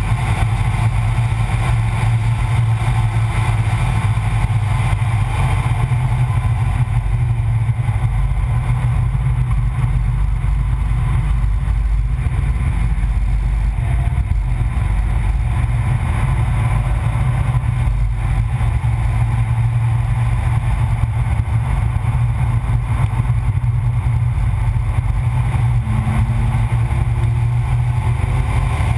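Car driven at speed around a race circuit, its engine and road noise mixed with wind rushing over an exterior-mounted camera's microphone. The sound stays loud and fairly even throughout, dominated by a deep low rumble.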